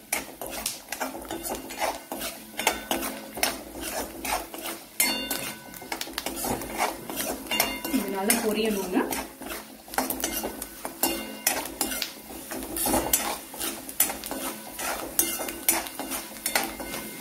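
Steel spoon stirring peanuts and grated coconut frying in oil in a metal kadai: a continual run of scrapes and clinks of metal on the pan.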